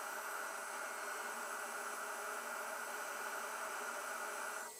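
Homemade CNC router milling POM plastic, with a vacuum hose held over the cut to suck up the chips: a steady rushing noise that drops off just before the end.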